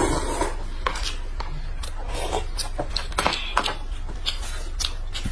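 Eating sounds: slurping from a cup of instant noodles and chewing dumplings, with short smacks and slurps every half second to a second over a steady low hum.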